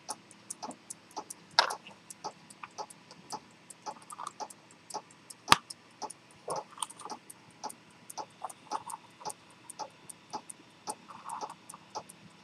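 A c1890 chronometer pocket watch with a detent escapement ticking steadily, several even ticks a second. Louder knocks come from the brass case being handled in the fingers, the sharpest about five and a half seconds in.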